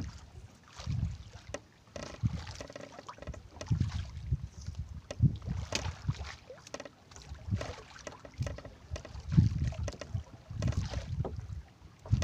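Water slapping and splashing against a small boat's hull in irregular low thumps, with wind buffeting the microphone.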